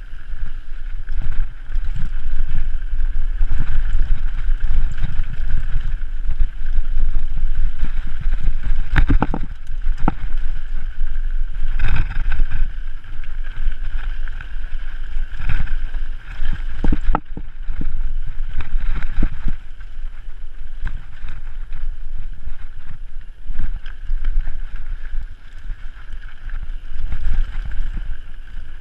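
Mountain bike riding fast down a dirt trail: continuous wind buffeting on the microphone over the rumble of the tyres, with sharp rattles and clatters from the bike over bumps, several of them in the middle stretch.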